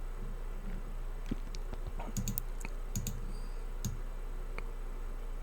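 Laptop keyboard keys being pressed, several irregular taps and clicks, over a low steady hum.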